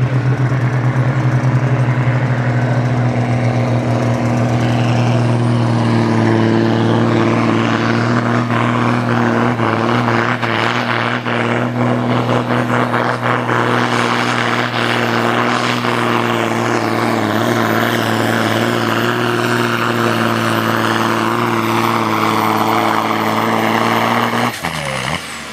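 Valmet tractor's diesel engine running flat out under full load as it hauls a weight-transfer sled in a tractor pull, its revs held nearly steady throughout. The engine note cuts back sharply about a second before the end as the throttle comes off.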